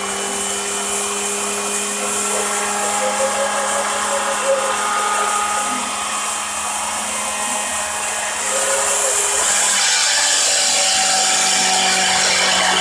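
A high-speed power-tool motor running steadily with a whine over a constant hum, growing louder about two-thirds of the way through.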